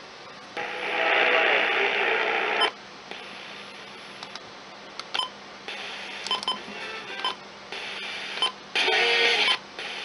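Midland weather-alert clock radio being tuned across the FM band: short snatches of station audio and hiss cut in and out as each new frequency is reached, with brief blips between.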